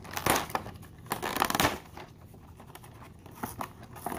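Clear plastic blister pack and cardboard backing of a Hot Wheels 5-pack crinkling and tearing as it is handled and pulled open, with two louder bursts of crackling in the first second and a half.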